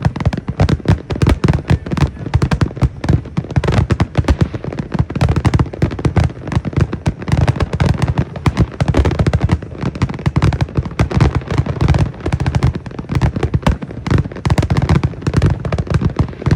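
Fireworks finale barrage: aerial shells bursting in a rapid, continuous run, many bangs a second overlapping with no gaps.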